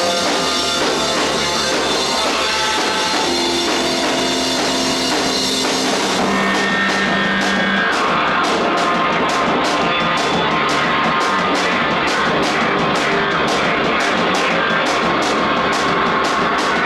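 Live rock band playing: drum kit and guitars with sustained chords. From about six seconds in, the drums keep a steady beat of about three hits a second.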